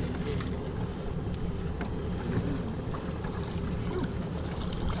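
Wind buffeting the microphone over water lapping against a small boat's hull: a steady low rumble with a few faint ticks.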